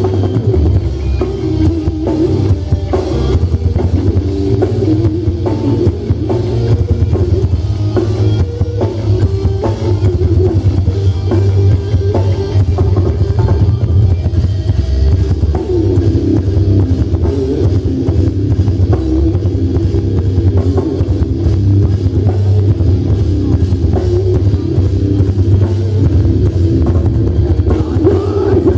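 Live instrumental metalcore band playing: distorted electric guitars, bass guitar and drum kit, loud and dense without a break.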